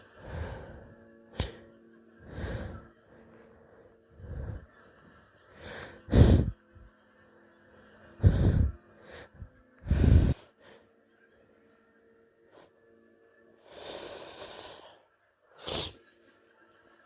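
A woman's sneezing fit: a run of stifled sneezes between sniffles and breathy build-ups, about a dozen bursts in all, the loudest three near the middle and a longer breathy build-up near the end.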